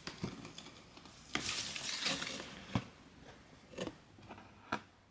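Hands handling blind-box packaging and a small plastic figure: a crinkly rustle about a second and a half in, with sharp clicks and taps spread through.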